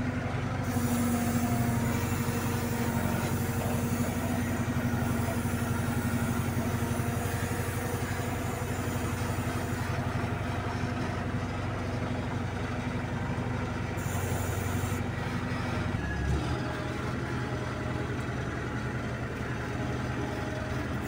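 The diesel engine of an ACE 14XW hydra crane runs steadily, heard from inside the operator's cab. About three-quarters of the way through, its low engine note changes.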